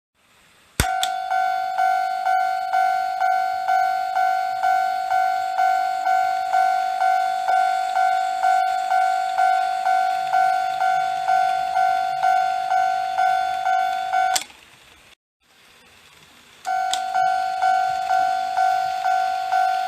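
Toy railway level crossing's electronic warning bell sounding, a repeating ding about twice a second. It switches on with a click about a second in, cuts off with a click about two-thirds of the way through, and switches on again a couple of seconds later.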